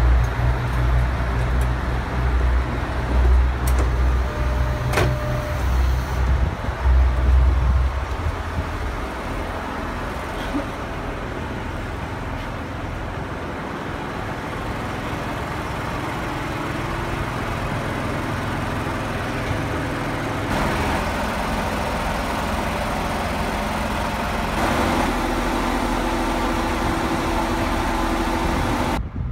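JR KiHa 48 diesel railcar idling at the platform: a heavy low rumble for the first several seconds, a sharp knock about five seconds in, then a steadier, quieter engine hum.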